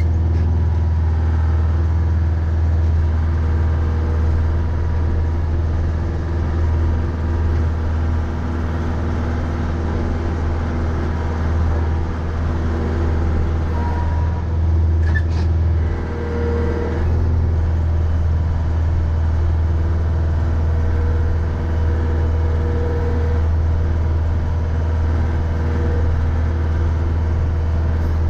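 A Mahindra 3550 tractor's 50 hp diesel engine running steadily under load as a low, even drone, with a brief faint squeak about halfway through.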